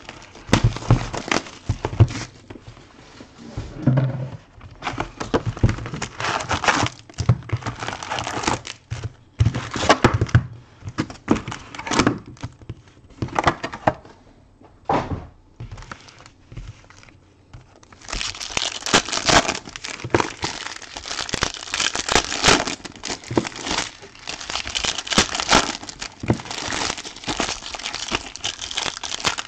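Trading-card box and foil card packs being handled and torn open: plastic and foil crinkling and tearing with a few knocks, quieter a little past halfway, then dense steady crinkling from about two-thirds in as the packs are ripped open.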